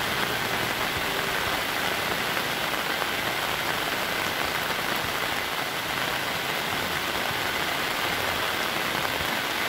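Steady rain falling on plastic tarpaulins, an even, unbroken hiss at a constant level.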